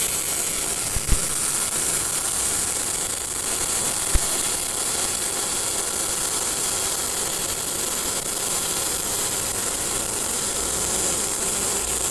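MIG welding arc from a TOPGUN MIG-315VS welder laying a fillet weld along the corner of steel plate: a steady sizzling hiss, with a small pop about a second in and another about four seconds in.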